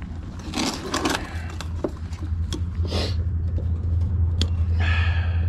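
Rustling and sharp clicks of hands working wiring and a plastic zip tie, with a snip as side cutters trim the tie, over a steady low hum that grows louder after about a second.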